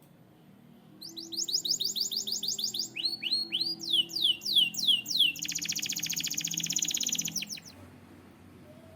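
Canary singing a phrase of repeated notes, starting about a second in: a quick run of falling whistles, a few slower, lower swoops, then a very fast buzzy trill that stops shortly before the end.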